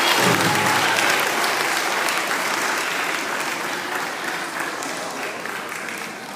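Audience applause and cheering after a children's song, loud at first and gradually dying away.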